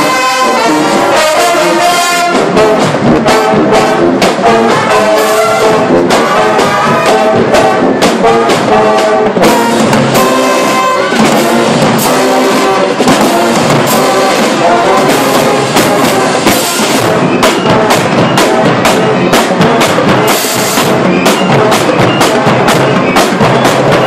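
Jackson State University's marching band playing loud brass, sousaphones close by, with drums beating underneath; the drum hits come more to the fore near the end.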